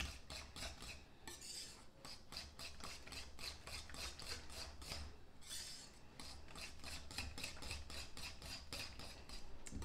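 Wire whisk beating barbecue sauce and grape jelly in a glass mixing bowl. It makes a quick, even run of scraping strokes against the bowl, about five a second.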